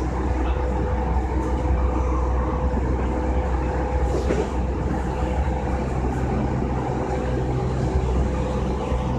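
JR East E233-2000 series electric commuter train running at speed, heard from inside the passenger car. A steady low rumble of wheels on rail carries a steady electrical hum from the drive.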